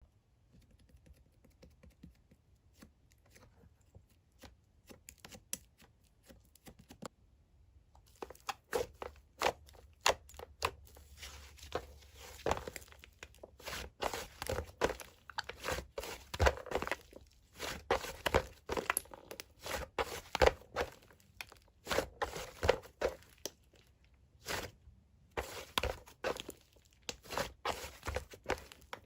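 Mint-chocolate ice-cream slime being squeezed and pressed by hand, making rapid sticky crackling and popping. Faint and sparse at first, it becomes dense and louder about eight seconds in, with brief pauses.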